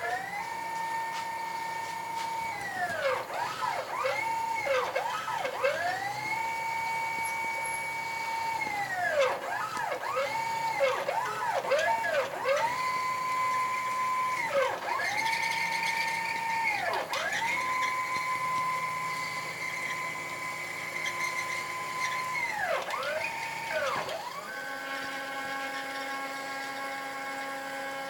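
CNC router's axis drive motors whining as the machine moves, the pitch ramping up, holding steady and dropping back again and again as the axes speed up and slow down between moves. Near the end the sound settles into a steadier, lower-pitched whine.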